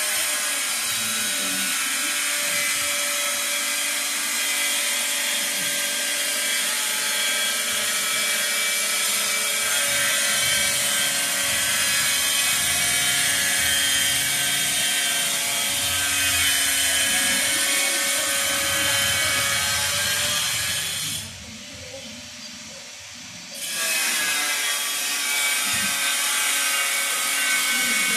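A machine running steadily, a hiss with a steady whine that PANN places among power tools; it cuts out for about two seconds near the end and then starts again.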